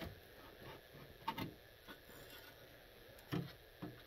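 A few faint, scattered clicks and light knocks of handling, about five over the few seconds, over quiet room tone.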